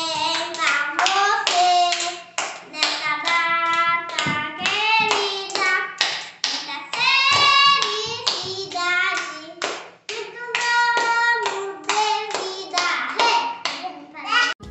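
A young child singing a song with rhythmic hand clapping along with it.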